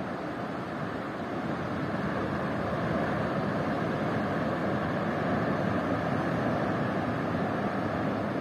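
Ocean surf washing up onto a beach: a steady rushing of waves that swells slightly about two seconds in.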